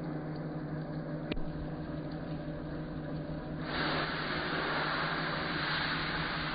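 Metal lathe running with a steady motor hum, a single sharp click a little over a second in, and from about halfway a louder, hissier running noise.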